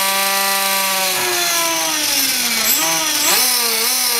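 Small RC helicopter's electric motor, driven by the new build's speed controller, running with a smooth whine. Its pitch drifts up and down with the throttle and dips and rises again near the end. It runs with no issue, a sign that the speed controller works and the fault lies in the build's own motor.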